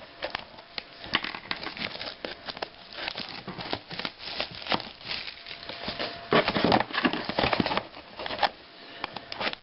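Plastic wrapping on a sealed trading-card box crinkling and tearing as it is opened, with many small clicks and rustles of handling and a louder burst of crinkling about six and a half seconds in.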